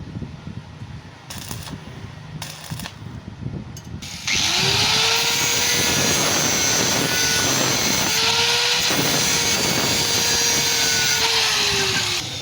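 Light clicks and rattles, then about four seconds in a power tool starts and runs loudly for about eight seconds with a strong hiss. Its motor pitch rises as it spins up, sags briefly near the middle and recovers, then falls away near the end as it runs down.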